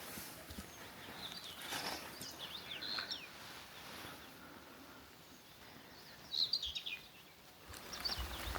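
Wild birds chirping: short, quick high calls in scattered clusters, the loudest about six and a half seconds in, over a faint outdoor hush.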